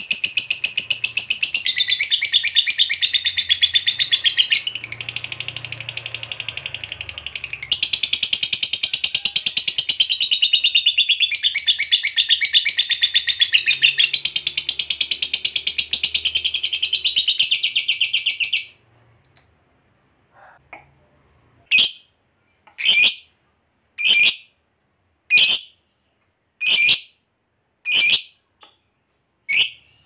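Masked lovebird's long 'ngekek' trill: a very fast, high-pitched, unbroken chatter that stops abruptly about two-thirds of the way through. After a short gap come single sharp chirps, roughly one every second and a bit.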